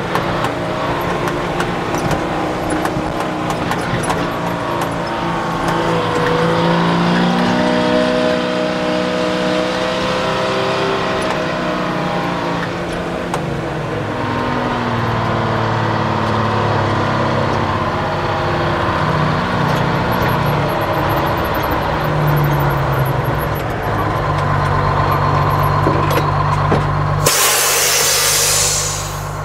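White 4000 truck's two-stroke Detroit Diesel engine heard from inside the cab under way, its note rising and falling several times as it pulls and changes gear. Near the end comes a loud hiss of air from the truck's air brakes, lasting about two seconds.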